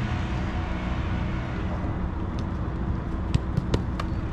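Soccer balls being struck during goalkeeper drills: a handful of sharp thuds in the second half, over a steady low outdoor rumble.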